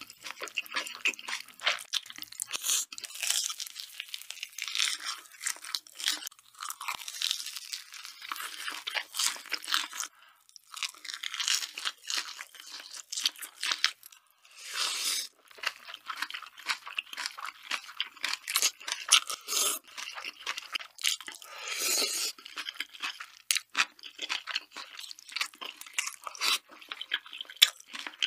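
Close-miked eating of spicy ramen noodles with chopsticks: continuous wet chewing with sharp mouth clicks, and a few short slurps as mouthfuls of noodles are drawn in.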